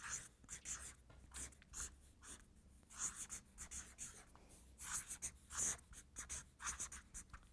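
Marker pen writing on flip-chart paper: faint, short scratchy strokes with brief pauses between letters.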